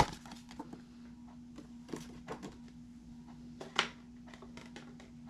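Handling noises on a desk: scattered small clicks and taps as a postcard is put aside and a plastic box cutter is picked up, the sharpest tap nearly four seconds in, over a faint steady low hum.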